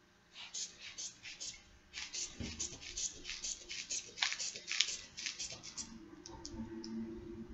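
Rubber bulb of a manual blood pressure cuff squeezed rapidly, a quick run of short air puffs about four or five a second, inflating the cuff on the lower leg. The puffs thin out and stop near the end.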